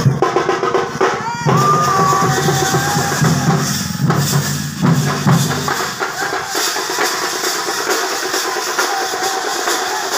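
Loud, fast festival drumming with a deep bass drum and sharper snare-like drums, played for a group dancing in the street. About six seconds in the deep low drum drops out and the higher drumming carries on.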